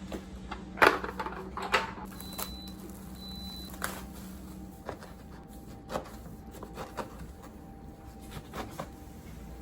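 Kitchen handling sounds while cooking: a string of separate sharp knocks and clicks, roughly one a second, the loudest about a second in, over a steady low hum.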